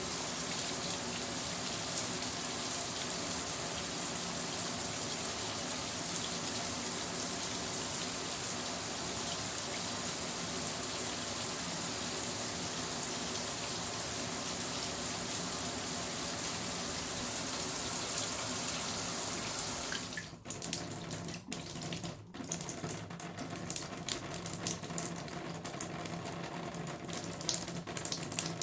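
Shower running, a steady hiss of water spray. About two-thirds of the way through the flow is interrupted by three brief dips, then goes on as a more uneven, broken splashing.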